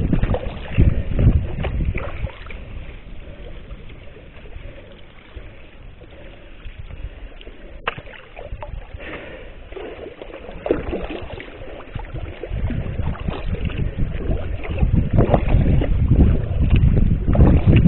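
Sea kayak being paddled: paddle strokes in the water and wind buffeting the microphone, loud at first, quieter through the middle and building again over the last few seconds.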